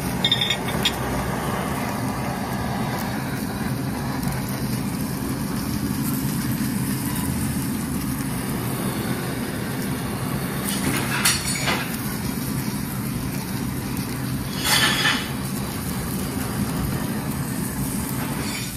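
Meat sizzling on a Korean barbecue tabletop grill over a steady low hum, with two short, louder hissing bursts about eleven and fifteen seconds in.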